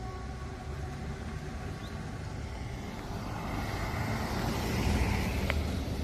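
Hesa Fredrik civil defence warning siren's steady tone dying away in the first second or two, the end of one blast of the on-off test signal. Then a rush of noise with a low rumble builds, loudest about five seconds in, like a car passing.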